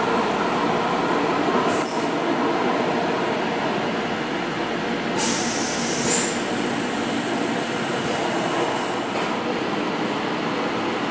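Golden Pass Panoramic train running along the line, heard from inside the carriage: a steady rumble and rattle of wheels on rails, with two short high wheel squeals, about two and six seconds in. A brighter rushing hiss joins about five seconds in.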